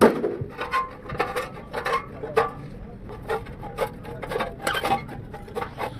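Irregular knocks and clinks of hand-tool work, about two or three strikes a second, the loudest right at the start.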